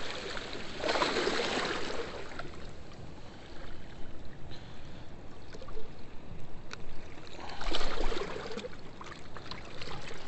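Steady rush of river water below a spillway, with two louder surges of splashing, about a second in and again near eight seconds.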